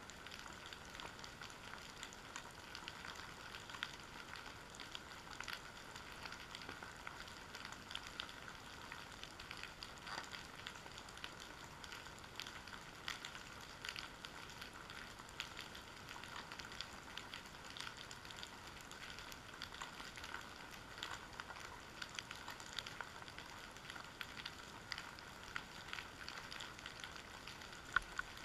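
Underwater ambience recorded by a camera sitting on a kelp-covered seabed: a steady faint hiss with dense, irregular crackling clicks, like fat frying.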